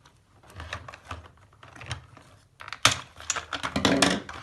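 Plastic toy packaging being handled and pulled apart to free a small toy car: scattered clicks and crackles, with a dense, louder burst of them near the end.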